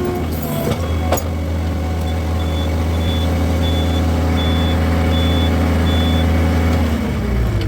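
Skid steer engine running, with its reversing alarm giving about seven short, high beeps at an even pace in the middle. The engine slows near the end.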